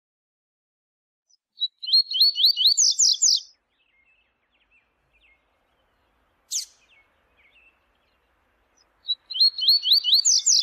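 Double-collared seedeater (coleiro) singing its 'viu-tiu' song: twice, a quick run of high notes that climbs in pitch toward the end, with a single sharp note between the two phrases.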